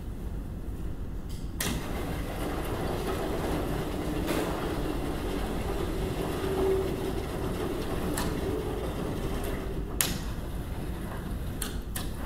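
Vertical sliding chalkboard panels being pushed along their frame: a rolling rumble that starts with a knock about a second and a half in and runs for about eight seconds, with knocks along the way and a sharp bang near the end as a panel comes to a stop.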